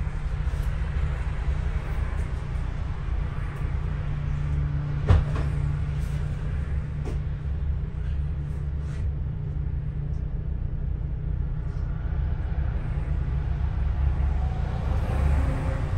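Double-decker bus running along the road: a steady low rumble of engine and road noise with light rattles, and a single sharp knock about five seconds in.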